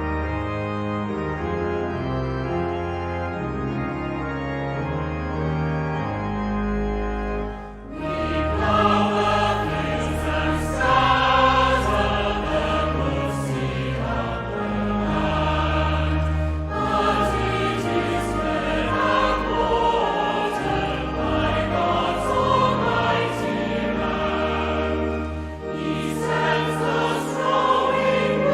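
Organ playing a hymn introduction in sustained chords; about eight seconds in, a choir joins, singing the hymn with organ accompaniment.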